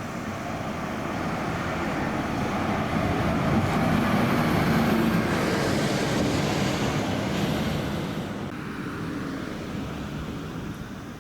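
A large diesel bus driving past, its engine and tyre noise swelling as it approaches and fading as it moves away.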